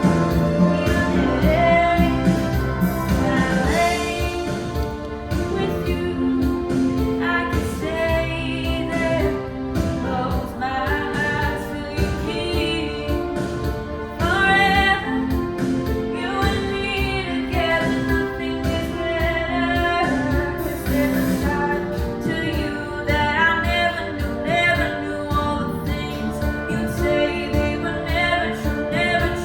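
A song playing: a singing voice over instrumental accompaniment with a steady beat.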